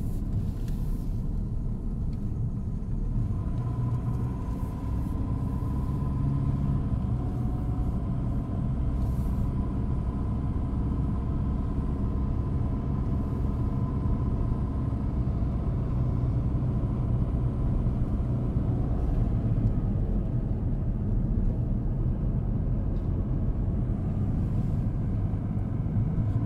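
Car driving at steady speed, heard from inside the cabin: a constant low rumble of engine and tyres on the road, with a faint steady whine coming in a few seconds in.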